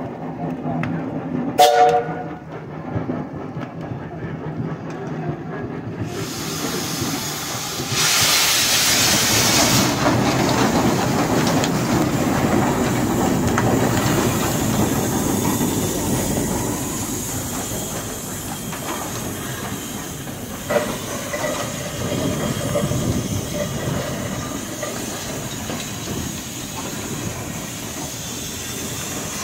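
Peerless steam traction engine running, with a brief sharp sound about two seconds in. About six seconds in, loud steam hissing starts, strongest for a couple of seconds, then settles into a steady hiss over the running engine.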